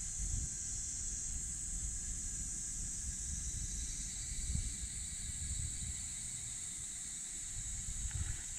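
Steady high-pitched outdoor hiss with an uneven low rumble underneath. Footsteps on a path begin near the end.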